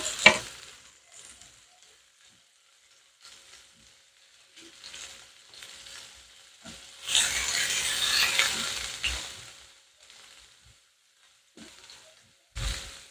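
Chopped garlic, onion, ginger and tomato sizzling in oil in a non-stick frying pan, stirred with a wooden spatula. The sizzle is loudest for about two seconds around the middle. A few sharp taps at the start and a low knock near the end.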